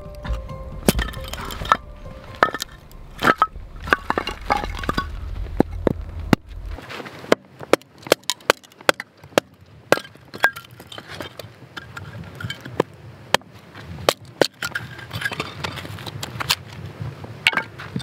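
Firewood being split with a blade struck into a log standing on a block bedded in snow: irregular sharp knocks, often several a second, with cracks as the wood gives way.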